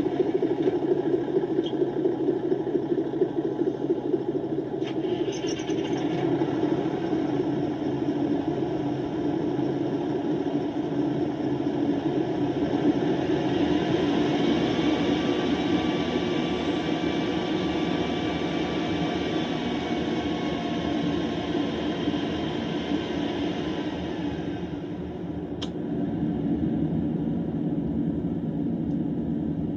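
Recorded diesel engine sound of a KiHa 85 series railcar's Cummins engine, played from a model railway sound card: a steady engine running sound that grows louder and brighter with a whining tone for a long stretch in the middle, as when the railcar accelerates, then eases back near the end.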